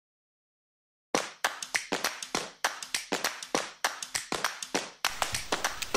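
A rapid, uneven run of sharp hand claps, about five a second, starting about a second in. Near the end a quiet music bed comes in under them.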